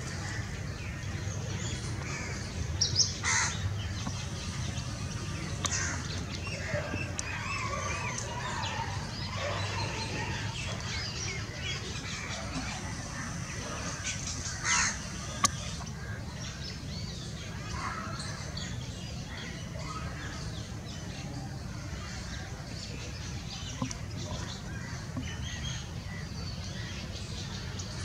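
Wild birds calling, with a couple of louder calls about three seconds in and again around fifteen seconds, over a steady low hum.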